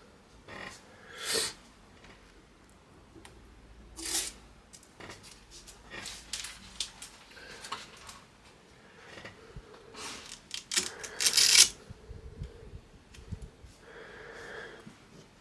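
Hands handling computer parts and their packaging: scattered plastic and cardboard rustles and small clicks, with a few louder rustling bursts, the longest about ten to twelve seconds in.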